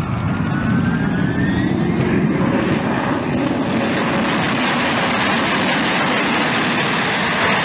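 Tupolev Tu-154 airliner's three rear-mounted jet engines on approach to land: a loud, steady rush of engine noise that builds in the first second and holds, with a high whine that dips and then rises over the first couple of seconds.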